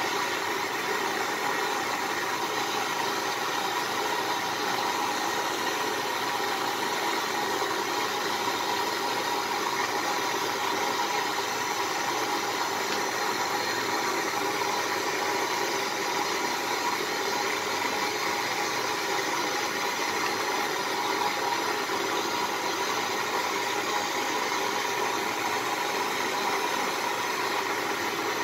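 Handheld butane torch on a gas canister, its flame jetting steadily into a crucible to melt silver: a constant hiss that holds at the same level throughout.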